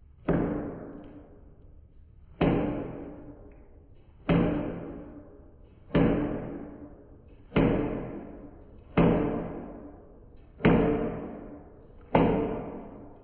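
Knife chops on a cutting board played back slowed down: eight hits, each with a sudden start and a slow fade, about one and a half to two seconds apart and not quite evenly spaced.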